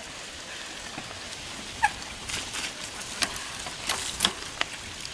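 Mountain bikes riding past on a dirt trail: tyre noise over the ground with scattered sharp clicks and rattles, most of them in the second half. A short sharp chirp about two seconds in is the loudest.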